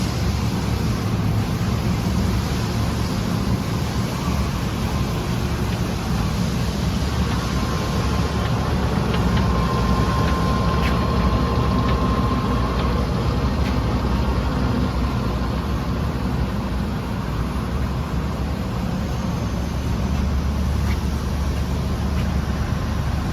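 Poreba TR100B/8M large manual lathe running under power, its headstock gearbox and spindle turning with a steady low hum and a faint whine partway through.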